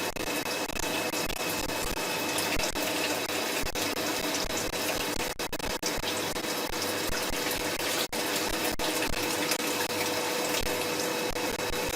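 4-axis CNC machining center milling a spiral bevel gear: a steady hissing, whirring machining noise with a few faint steady tones.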